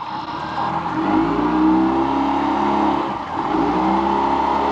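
Large sturgeon fishing reel being cranked hard in two spells of about two seconds with a short pause between, its gears giving a pitched whir that rises and falls slightly with cranking speed, as line is won back from a big white sturgeon.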